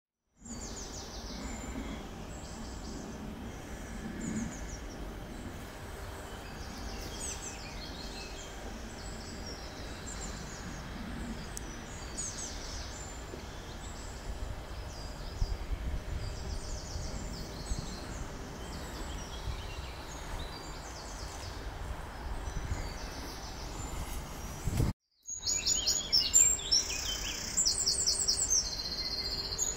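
Birds chirping and singing over a steady outdoor background hiss. The sound drops out briefly about 25 seconds in, and after that the bird song is louder, with quick runs of high notes.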